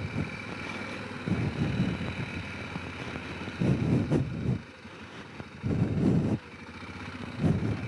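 Honda Rincon 650 quad's single-cylinder engine running at low speed over rough ground, swelling in four short throttle surges.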